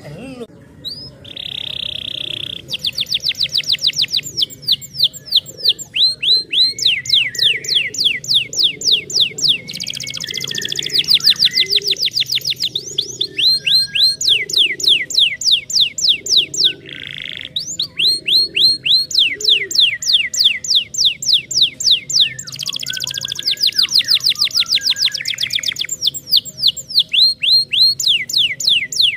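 Domestic canary singing: fast trills of rapidly repeated falling notes in phrases several seconds long, with a short held, buzzy note about two seconds in and again midway.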